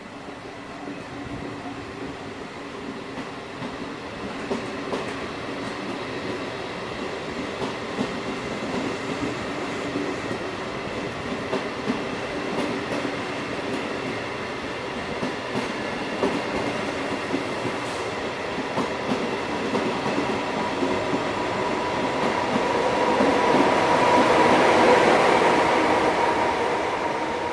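Trenitalia regional train of MDVE coaches hauled by an electric locomotive, pulling out and gathering speed as it rolls past the platform, with wheels clacking over the rail joints. The running noise builds steadily, is loudest near the end as the last coaches pass, and then starts to fade.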